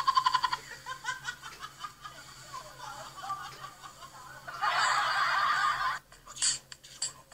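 A person laughing, in a quick run of short pulses at the start, then in broken bursts. About four and a half seconds in comes a louder, rougher sound lasting about a second and a half, and a few sharp clicks follow near the end.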